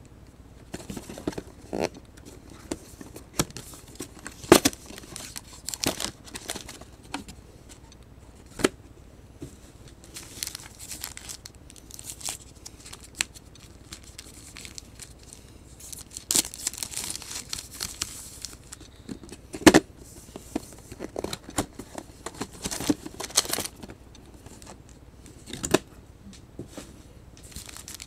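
Foil-wrapped Elite Extra Edition trading card packs handled by hand: the wrappers crinkle, with scattered sharp taps and knocks as packs are set down and squared into a stack. A longer stretch of crinkling comes about halfway through.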